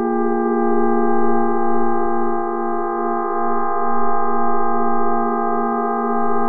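Ambient drone of several steady held tones, without beat or percussion, swelling and easing gently in loudness.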